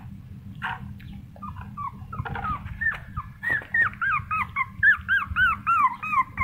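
Young puppy, about three weeks old, whimpering in a run of short, high squeals that rise and fall in pitch. The squeals grow louder and quicker through the second half, about three a second.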